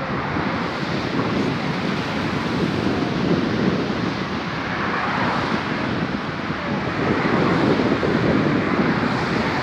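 Wind buffeting the microphone over the wash of sea waves on the shore, rising and falling in slow swells.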